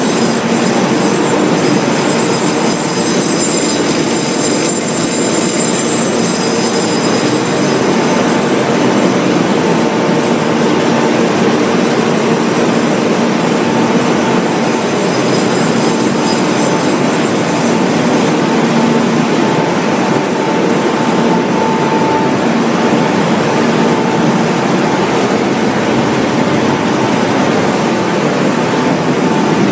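Salt production line machinery running: a loud, steady industrial din with a constant low hum. A high whine fades out after about eight seconds.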